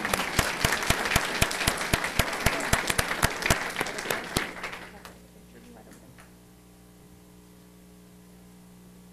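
Audience applauding, a crowd of hands clapping with single sharp claps standing out, dying away about five seconds in. A steady low electrical hum is left after.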